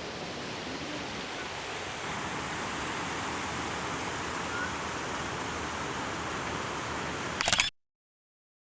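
Steady outdoor rushing noise, with no clear tone or rhythm. Near the end a brief loud rustle or clatter, and then the sound cuts off into total silence.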